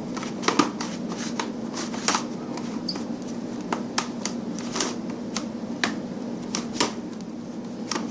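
Layers of a giant Rubik's cube being turned by hand, giving sharp irregular clicks and clacks, roughly one a second.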